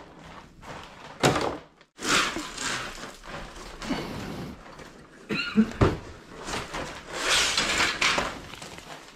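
Plastic housing of an LG split air conditioner's indoor unit knocking and scraping against its metal wall mounting plate as it is unhooked and lifted off the wall. There is a sharp knock about a second in and another near six seconds, with rustling and scraping between.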